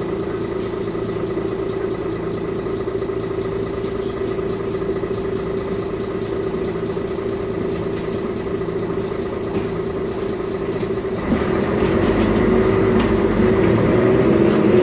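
Mercedes-Benz Conecto G articulated city bus running on its OM457LA inline-six diesel, a steady droning tone over the engine. About eleven seconds in it grows louder and rougher, with wavering tones, as the drivetrain comes under more load.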